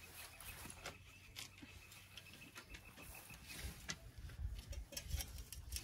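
Faint scattered taps and knocks as a sheet of plywood is carried and handled, with a low rumble in the second half as clothing brushes close to the microphone. A faint steady high tone holds from about half a second to about three seconds in.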